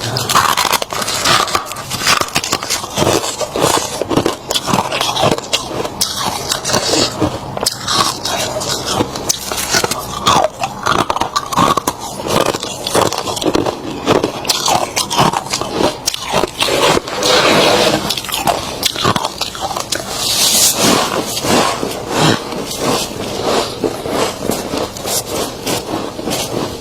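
Freezer frost being scraped and bitten, a dense, continuous run of crackly crunches and scrapes.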